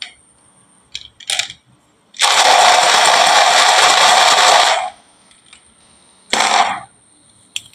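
Many marbles clattering at once in a dense rattle lasting about two and a half seconds, after a few single clicks, then a second short burst of clatter and one more click near the end.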